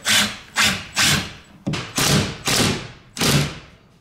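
Cordless impact driver run in about eight short trigger bursts, driving a screw through drywall to pull the loose drywall tight at the window edge.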